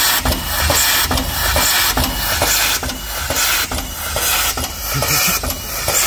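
Train running: a loud, steady rush of noise with a rhythmic beat about twice a second.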